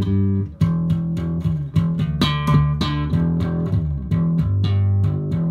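Vintage electric bass played through a Furnace Bass Drive overdrive pedal into a small amplifier: a run of plucked single notes, several a second, with a few slides between notes.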